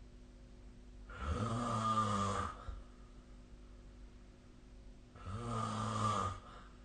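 A sleeping person snoring: two long, buzzy snores about four seconds apart, each lasting a second or so, with quiet in between.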